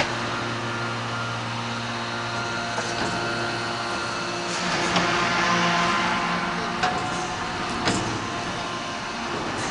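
2500-ton hydraulic open-die forging press running with a steady hum, a hissing swell about halfway through, and a few sharp knocks.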